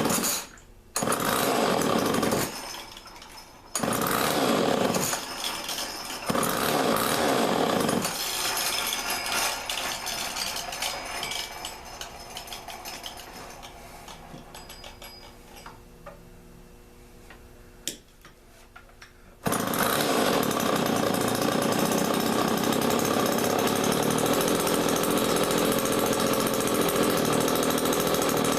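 Two-stroke Homelite chainsaw being started: a few short bursts, then it runs for several seconds and dies away. After a short lull it starts again about two-thirds of the way through and keeps running steadily.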